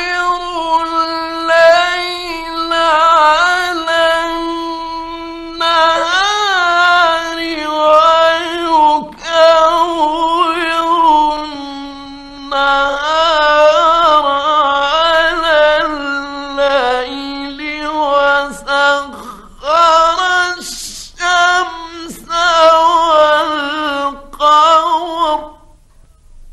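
A male Quran reciter chanting in the melodic mujawwad style, in a high voice: several long, drawn-out, ornamented phrases with short breaths between them. The voice stops near the end.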